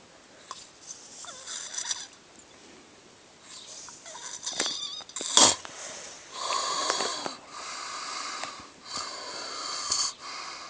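A person snoring in sleep, a string of breaths about a second long each, one after another, in the second half. A single sharp click, the loudest sound, comes a little past halfway.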